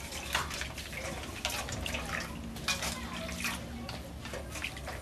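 Water sloshing and splashing in an aluminium basin as leafy greens are washed by hand and lifted out, in a string of irregular short splashes.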